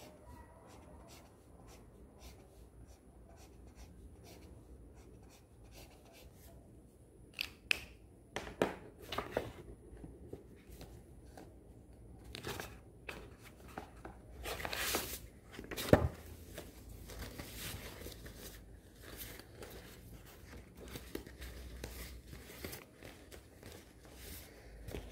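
Paper being handled on a desk: notebook pages and sticker sheets rustling and crinkling, with scattered taps and clicks. One sharp knock about sixteen seconds in is the loudest sound.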